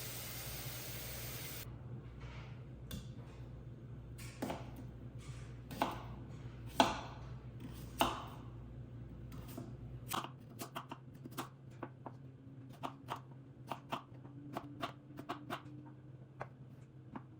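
A kitchen tap runs briefly and shuts off, then a knife knocks against a cutting board: a few single, heavier cuts, then steady chopping at about two to three strokes a second.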